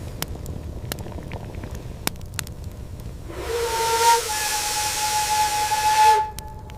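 A loud hiss with a steady whistling tone starts about halfway through, lasts about three seconds and cuts off suddenly, after faint crackling and clicks.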